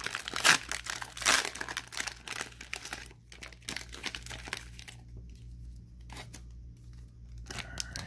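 Plastic wrapping of trading-card cello packs crinkling and tearing as the packs are opened. Busy for the first three seconds, then a few fainter rustles.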